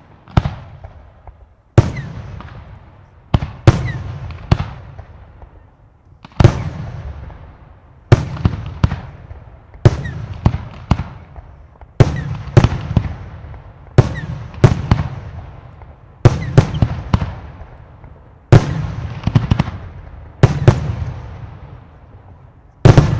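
Aerial firework bursts going off one after another, a sharp bang every second or two, some in quick pairs or triplets, each followed by a rumbling echo that dies away. The loudest bang comes near the end.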